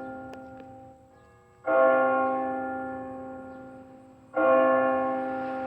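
A single church bell striking noon. The last stroke's ring fades away, then the bell is struck twice more, about two and a half seconds apart, each stroke ringing the same note and dying away slowly.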